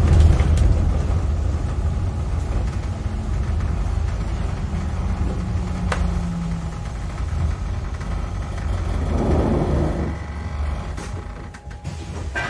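London bus engine running, heard from inside the passenger cabin as a steady low rumble, with a single click about six seconds in. The rumble drops away near the end.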